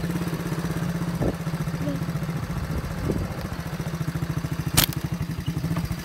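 A small engine running steadily with an even, rapid beat. A single sharp snap cuts through near the end.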